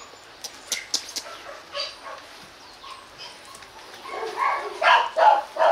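Village dogs giving a quick run of short barks starting about four seconds in, after a quieter stretch.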